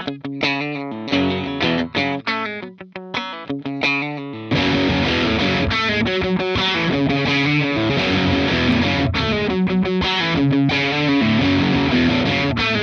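Electric guitar played through the Crook V4 overdrive pedal: distorted single notes picked with short gaps between them, then about four and a half seconds in, steady, louder, fuller overdriven playing.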